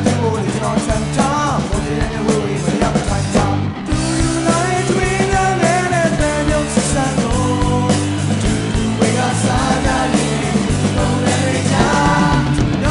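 Burmese pop-rock song: a male lead voice sings the melody over a rock band with keyboards.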